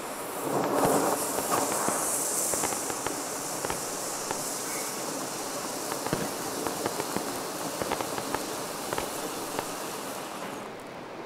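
Fireworks crackling and popping in scattered sharp cracks, with a louder rushing hiss about a second in.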